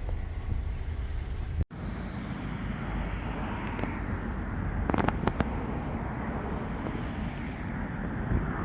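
Wind buffeting the phone's microphone: a steady rushing rumble heaviest in the low end, broken for an instant about two seconds in.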